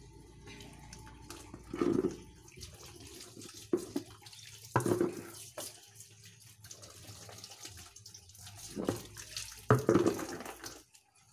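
Clothes being scrubbed and swished by hand in water, with irregular splashes every second or few.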